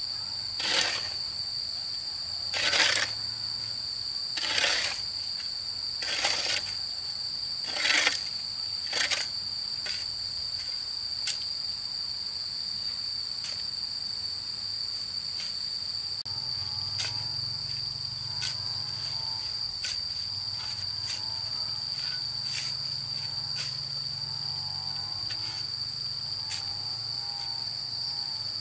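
Hoe chopping and scraping into a pile of dry sand and cement being mixed, a stroke every second or two, the strokes dropping to light scrapes after about ten seconds. Insects drone steadily at a high pitch throughout.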